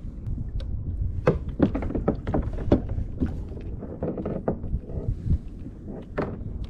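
Irregular knocks and thuds on a plastic fishing kayak over a steady low rumble of wind and water.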